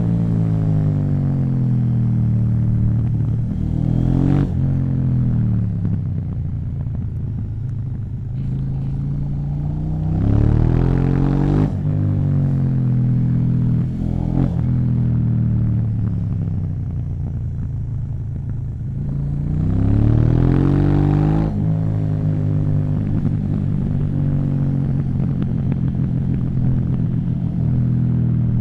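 KTM 790 Duke's parallel-twin engine through an Akrapovic exhaust, revving up and dropping back several times, its pitch climbing in surges and falling away between them.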